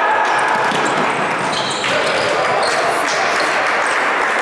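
Futsal play in a reverberant sports hall: the ball being kicked and bouncing on the wooden court, with players calling out over steady hall noise. A short high squeak comes about a second and a half in.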